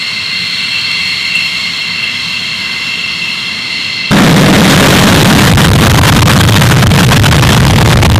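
F-15E Strike Eagle's twin Pratt & Whitney F100 turbofans at taxi power: a steady high turbine whine over a low rumble. About four seconds in, the sound jumps abruptly to a much louder, even jet-engine roar.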